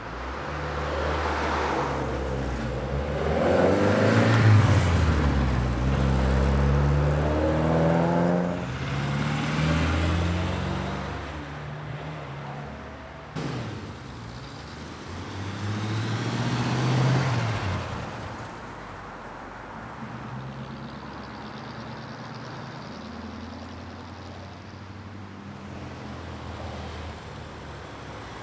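Classic cars pulling away and driving past one after another, each engine rising in pitch and loudness as it accelerates by, with loud swells in the first half and a quieter run of idling and slow-moving engines in the second half.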